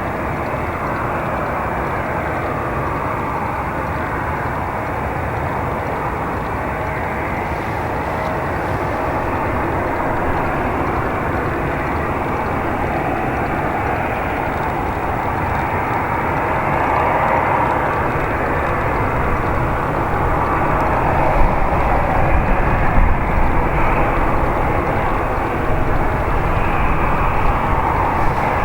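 Airbus A319 jet airliner with CFM56 engines, its steady jet engine noise slowly growing louder, with heavier low rumbling bumps in the last third.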